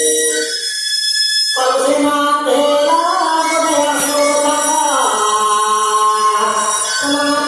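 Dance accompaniment music: a melody of held, slightly gliding notes. The lower notes drop out for about a second near the start, then return.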